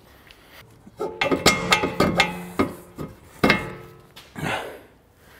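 A run of metallic clanks and knocks with a brief ringing after them, as tools and suspension parts are handled, from about a second in until nearly four seconds in. A short hissing rush follows near the end.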